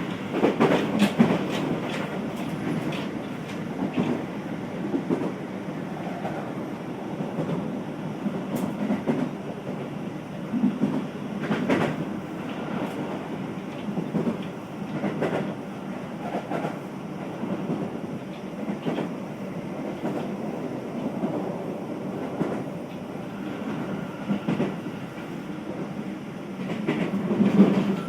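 Inside a Keio new 5000 series electric train car running along the line: a steady rumble of wheels on rail, broken by irregular clacks as the wheels pass over rail joints and points.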